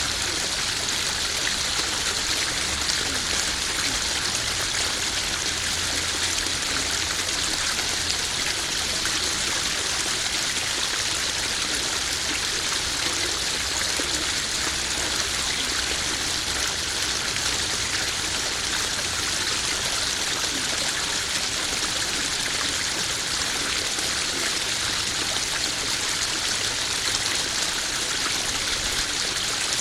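Small garden waterfall spilling into a koi pond: steady splashing and trickling of running water, even and unbroken.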